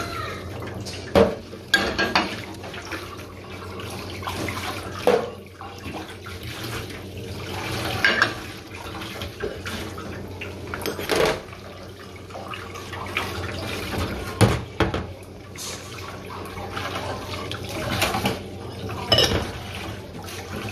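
Kitchen tap running into a stainless steel sink as dishes are washed by hand, with ceramic bowls and a spoon clinking and knocking every few seconds.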